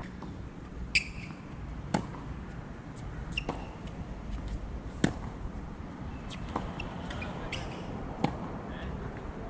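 Tennis ball being hit by rackets and bouncing on a hard court during a baseline rally: a series of sharp pops about every one to one and a half seconds.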